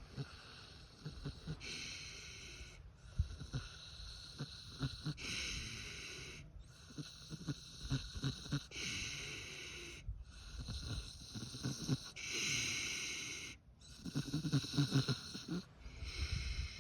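Pig snoring in its sleep: a hissing breath about every three and a half seconds, with rattling, snorting low pulses between them.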